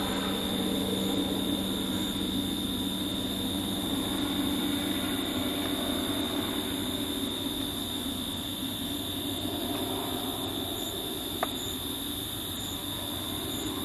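Helicopter droning steadily overhead and slowly fading, heard together with a constant thin high-pitched whine.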